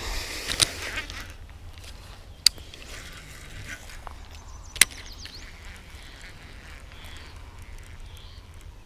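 Outdoor ambience: a steady low wind rumble, with a short animal call at the very start and three sharp clicks about half a second, two and a half and five seconds in.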